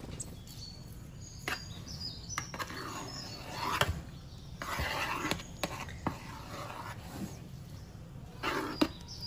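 Back of a metal spoon scraping and pressing a grainy semolina dough flat in a metal baking pan, making short swishing strokes with a few light taps against the pan.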